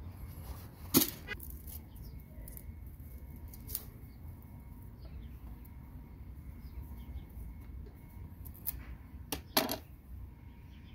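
A few sharp knocks of a cleaver and utensils on a plastic cutting board, the loudest about a second in and two more close together near the end, over a low steady background rumble.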